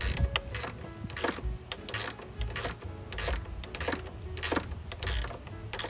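Hand ratchet tightening a motorcycle headlight mounting bolt: short bursts of ratchet clicks, about three every two seconds, one on each back-swing.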